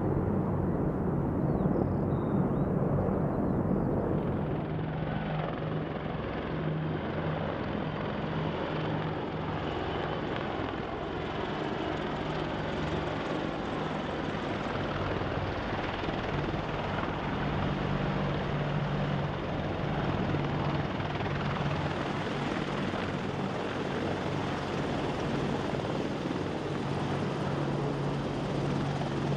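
AH-64 Apache attack helicopters flying, a steady din of main rotor and twin turboshaft engines, with a strong low hum. The sound changes abruptly about four seconds in.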